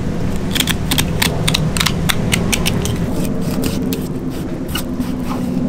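Fillet knife slicing along the back of a large yellow jack, the blade crackling and clicking through the skin and flesh in quick runs, over a steady low rumble.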